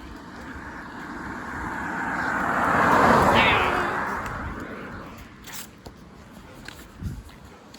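A car driving past, its road noise swelling to a peak about three seconds in and then fading away.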